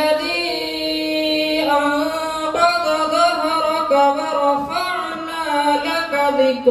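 A single voice singing or chanting a slow melody in long, held notes that step from pitch to pitch.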